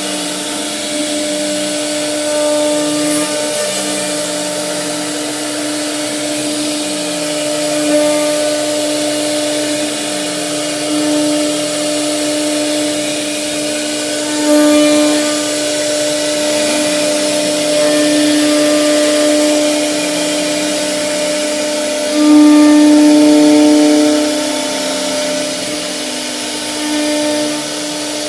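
CNC wood router running: a steady spindle whine, with the stepper motors stepping up and down in pitch as the head travels. It grows louder for a couple of seconds about three-quarters of the way through, as the bit bites harder into the wood.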